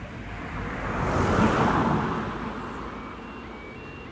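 A car drives past over the level crossing, its tyre and engine noise swelling and fading over about two seconds. About three seconds in, the crossing's two-tone warning alarm starts, alternating between a lower and a higher pitch: the start of the closure sequence, with the amber lights coming on.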